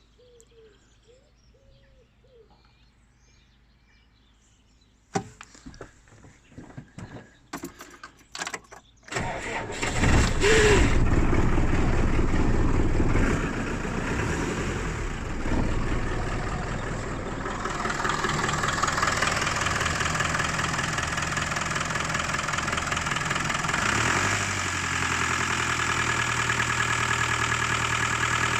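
Land Rover 200TDi 2.5-litre four-cylinder turbodiesel starting from cold after sitting for days: a few seconds of near silence while the glow plugs heat, some clicks and knocks, then it cranks and fires at about ten seconds in. It runs loudest for a few seconds, then settles to a steady diesel idle.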